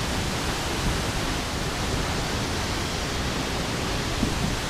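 Steady, even rush of a large waterfall pouring into its plunge pool.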